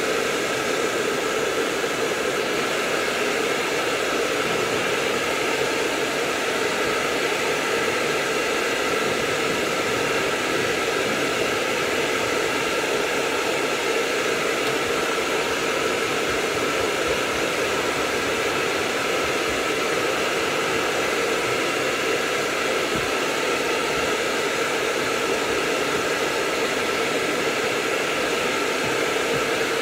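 Hair dryer blowing steadily at a constant speed, a dense even rush of air with a faint whine over it, used for drying a miniature dachshund's coat.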